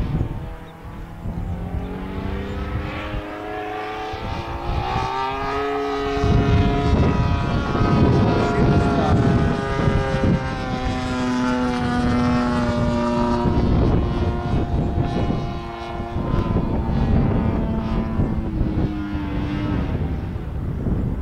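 52cc Taurus gas engine of a giant-scale RC Extra 330L in flight overhead, propeller buzzing. Its note climbs in steps over the first six seconds as the throttle opens, is loudest in the middle, and drifts lower toward the end.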